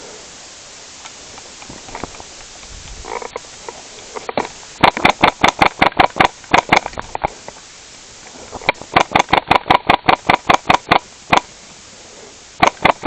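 Airsoft rifle firing rapid strings of shots at about five a second: two long strings of about a dozen shots each, and a short string near the end.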